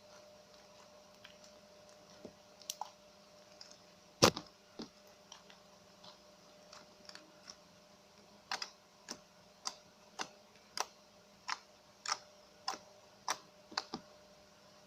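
Homemade slime clicking and popping as it is pressed and poked: scattered sharp clicks, one much louder about four seconds in, then a regular run of clicks a little under two a second near the end.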